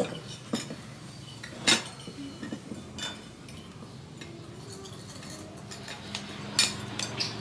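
Spoons and ceramic bowls clinking lightly against each other and on a wooden table, a handful of separate clinks with the sharpest about two seconds in and a few quick ones near the end.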